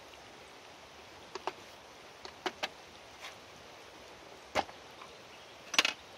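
Scattered light clicks and knocks of a spoon and small sauce bottles and a cup being handled while measuring out a sauce, a handful of sharp taps with the loudest cluster near the end, over a steady background hiss.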